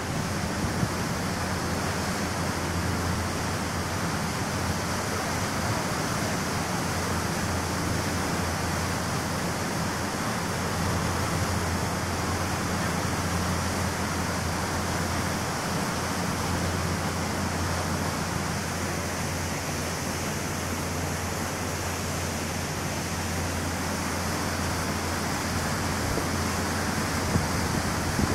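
Steady rush of water and wind on the open deck of a First Fleet class ferry under way, over the low, even drone of its engines.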